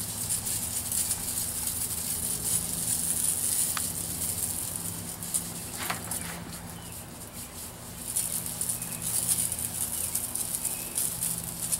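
Hand-pump garden sprayer misting a water-and-crystal mixture onto concrete: a steady high hiss from the nozzle, which eases off about five seconds in and picks up again about three seconds later.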